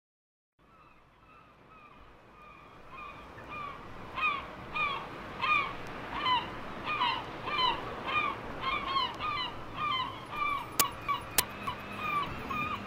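House track playing from a vinyl record on a turntable. It fades in with a short call that bends in pitch, repeating about every two-thirds of a second and growing louder, with two sharp clicks in quick succession near the end.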